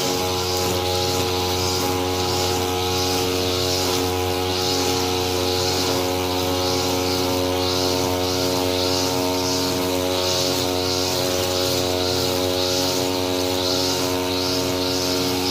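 Lawn mower running steadily at a constant engine speed, with a hiss that comes and goes about once a second.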